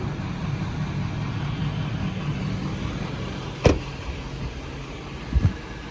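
Ford 6.7 Power Stroke V8 diesel idling steadily, with one sharp knock about three and a half seconds in and a brief low thump near the end.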